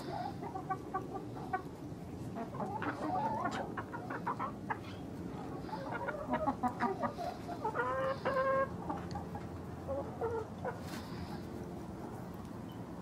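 Backyard chickens clucking, a run of short calls from several birds, with one longer, louder call about eight seconds in.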